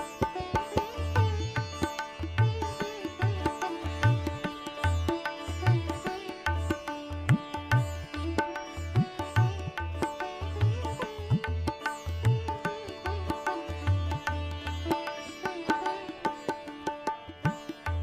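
Background music: a plucked string melody with bending notes over a steady drone, and a regular low drum beat.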